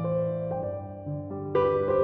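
Soft piano background music, notes changing about every half second, with a louder chord struck near the end.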